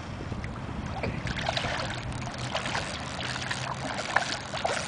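Hooked peacock bass thrashing at the surface close to the bank: irregular small splashes of water over a steady low rumble.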